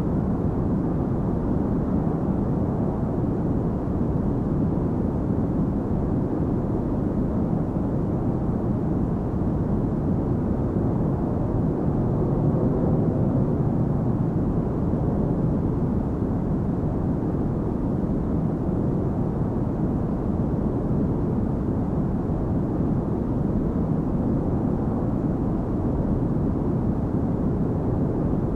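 Jet airliner cabin noise in flight: a steady, even low rumble of engine and airflow noise as heard inside the cabin, with little in the high range.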